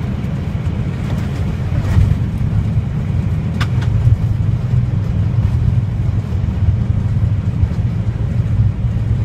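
Airliner on its landing rollout heard from inside the cockpit: a steady low rumble of the wheels on the runway and the engines.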